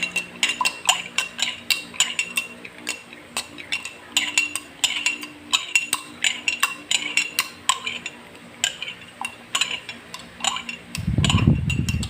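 A spoon stirring the oregano-juice, honey and calamansi mixture, clinking against the side of the container a few times a second. About eleven seconds in there is a dull low thump lasting about a second.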